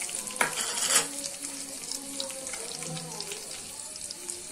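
Chopped onion hitting hot oil in a frying pan and sizzling, with a louder burst of sizzle about half a second in as it lands, then a steady crackling fry.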